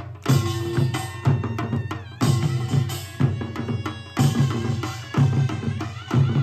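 Instrumental music from a live performance: a deep drum struck about once a second under a wavering sustained melody.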